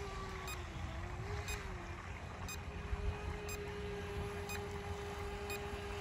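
Electric RC speedboat's motor whining steadily out on the water, its pitch dipping and recovering about a second in. A faint short beep repeats about once a second, over low wind noise on the microphone.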